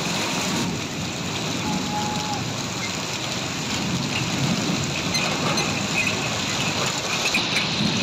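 Heavy rain pouring down on a street, a steady dense hiss, with traffic going by through it.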